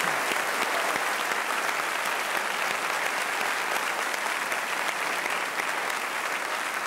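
A large seated audience applauding, with dense, steady clapping.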